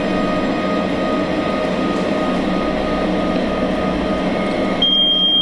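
Steady, dense droning hum with a few faint held tones in it. Near the end the hiss thins and a single high, steady tone begins.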